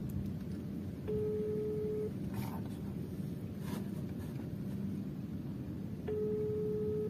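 Telephone ringback tone through a phone's speaker: two one-second beeps about five seconds apart, the ringing a caller hears while a call waits to be answered. A steady low rumble runs underneath.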